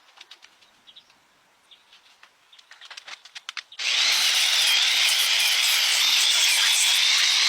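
Scattered light clicks and taps, then about halfway through a sudden, steady, loud spraying hiss starts and holds.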